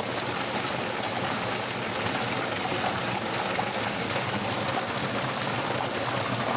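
Running water: a steady, even rushing with no breaks.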